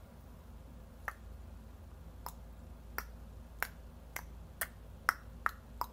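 A series of about nine short, sharp clicks made by a person trying to snap, unevenly spaced and coming faster towards the end.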